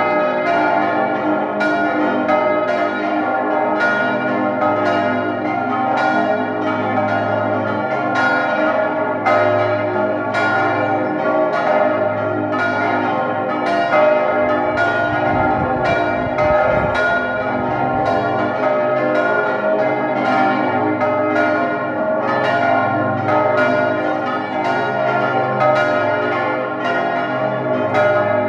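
Full peal of church bells, mostly Johann Hahn bells cast in Landshut in 1947, with the largest tuned to A-flat, all swinging at once. Strikes fall thick and irregular over a steady wash of overlapping ringing tones.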